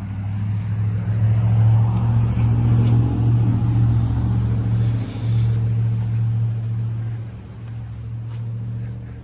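A motor running with a steady low hum that grows louder about a second in and fades off near the end, with two brief hisses partway through.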